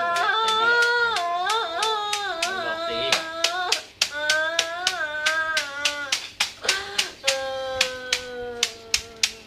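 A high voice holds long, wavering notes that slide up and down, chant- or wail-like, over a steady run of sharp hand claps, roughly three a second.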